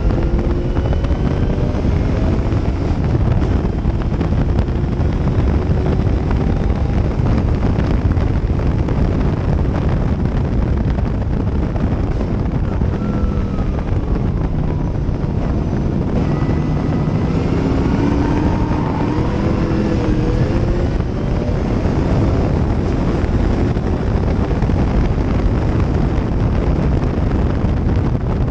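Gentry Cobra race car's engine heard from the open cockpit at racing speed, buried under heavy wind buffeting on the microphone. The engine note rises and falls with the throttle through the lap.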